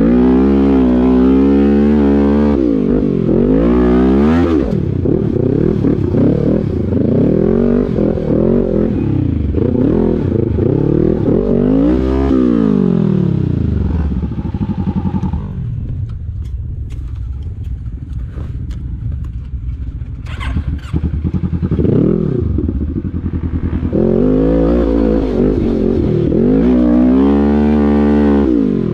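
Sport quad engine revving hard in repeated surges, its pitch climbing and falling as the rider powers up steep sand slopes. About halfway through it drops to a lower, quieter run with some clicks and clatter, then revs up again near the end.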